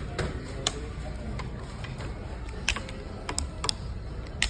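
Irregular light clicks and taps, about eight over a few seconds, several bunched together near the three-second mark, over a steady low hum of room noise.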